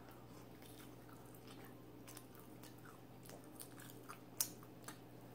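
Faint mouth sounds of someone chewing rotisserie chicken: soft, wet clicks scattered through, with one sharper click about four seconds in.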